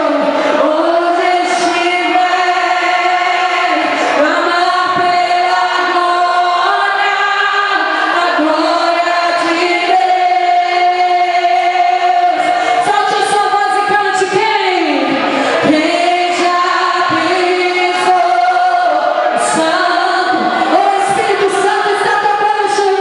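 A woman singing, holding long notes that slide between pitches, with no break in the singing.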